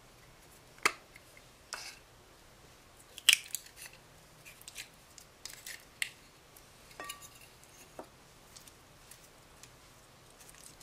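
Hands flexing and peeling a soft blue chick-shaped mould off a lump of clear slime: scattered sharp clicks and sticky pops. The loudest come about a second in and at about three seconds, with a brief squeak near seven seconds.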